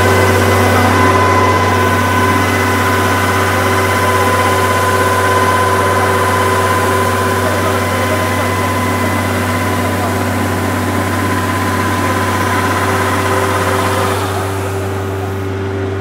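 Rice combine harvester running steadily with its grain-unloading auger engaged, paddy pouring out of the spout, giving a steady low engine hum with a higher whine above it. About two seconds before the end the higher whine drops away and the sound gets slightly quieter as the unloading stops, leaving the engine running.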